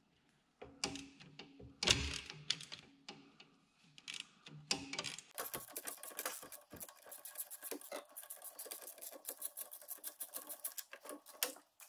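Ratchet wrench on a long socket extension, clicking in a rapid, even run from about five seconds in as it backs out one of the last bolts holding a tractor engine in. A few metal knocks and rattles come before it.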